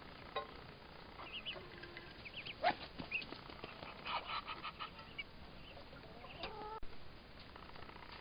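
Chickens clucking and giving short calls here and there, with a few sharp clicks between them.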